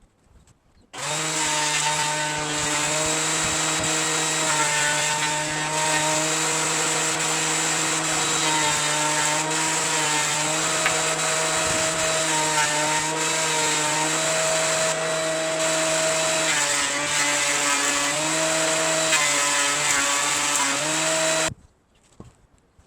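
Electric wood planer running under load as it shaves 2x4 lumber. It starts about a second in, runs loudly with a steady whine that sags and recovers in pitch several times as the cutter bites, and stops abruptly near the end.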